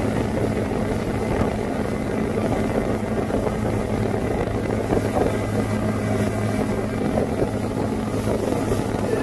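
Motorboat engine running at steady speed with a constant low drone while towing a tube rider, along with the rushing of the boat's wake.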